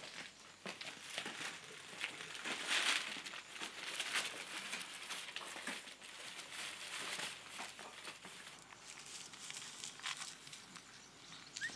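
Paper crinkling and rustling, an uneven run of crackles, loudest about three seconds in.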